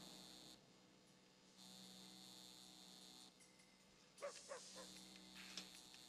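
Faint electric buzz of a neon sign, cutting out about half a second in and coming back on a second later. From about four seconds in, a few short falling calls and light clicks are heard over it.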